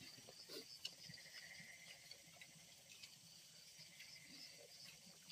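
Near silence: a faint high, pulsing chirr of insects, with a few soft clicks as people eat with their hands.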